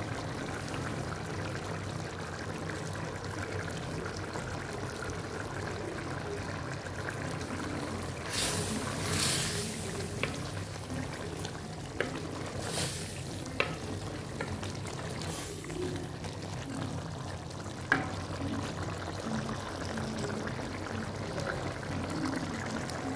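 Chicken curry bubbling and sizzling in an open clay pot as its liquid cooks down. It is stirred with a wooden spoon, giving louder sizzling spells about eight and twelve seconds in, and the spoon knocks on the pot a few times.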